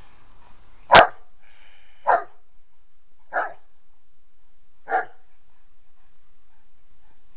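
Newfoundland dog barking four times, single barks spaced about a second or more apart, the first the loudest.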